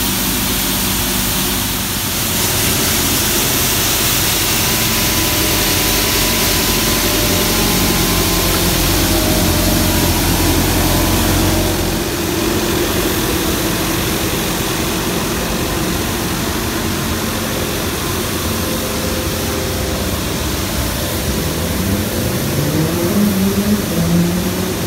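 Johnston compact street sweeper running with its gutter brooms down on the pavement: a steady engine drone under a loud hiss. Its pitch rises as the engine revs up near the end.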